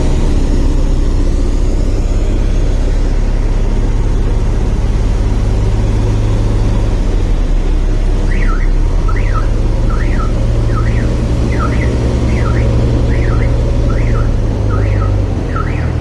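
Heavy diesel machinery engine running with a loud, steady low rumble that shifts in pitch about halfway through. From about halfway, a warbling electronic chirp repeats roughly every three-quarters of a second over the engine.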